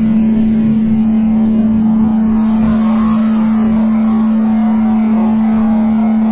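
Ambient meditation-style drone track: one loud steady tone held unchanged over a dense, rushing and swirling noise bed.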